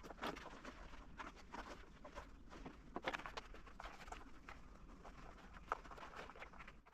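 Faint handling noises: light irregular clicks and rustling as a new paper vacuum bag's opening is worked onto the bag fitting of an upright vacuum cleaner.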